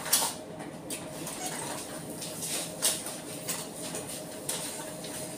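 About five sharp clicks and knocks spread a second or more apart, over a steady faint hum.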